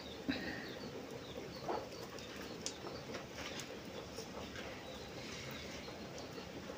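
Faint birds chirping in short high calls that repeat, over a low steady background, with a few light knocks in the first three seconds.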